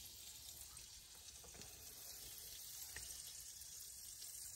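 Faint sizzle of butter melting on the hot plate of a mini waffle maker.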